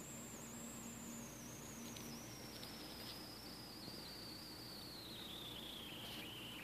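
A faint, thin, high-pitched whine that slides slowly and steadily down in pitch, over low steady room noise. A low hum stops about two seconds in.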